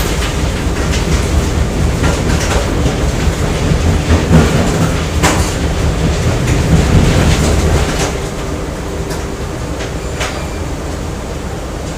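Factory machinery noise: a steady low rumble with scattered metallic clanks and knocks, dropping to a quieter steady hum about eight seconds in.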